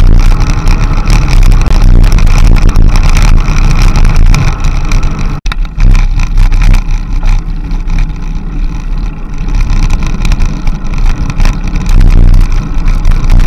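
Loud wind buffeting and rumbling over the microphone of a bike-mounted action camera moving at speed along a mountain road. It drops out for an instant about five seconds in.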